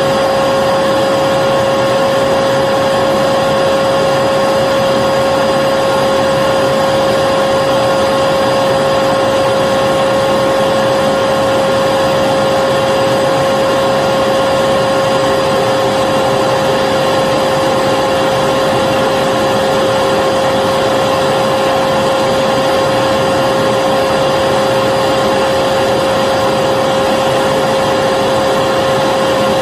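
Vacuum cleaner running steadily: a continuous rushing whoosh with a steady droning whine held at one pitch, unchanged throughout.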